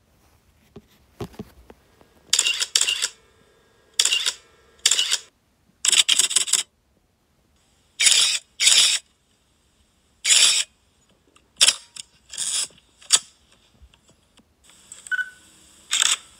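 Camera shutter clicks, about a dozen, fired at uneven intervals roughly a second apart, each a short sharp snap.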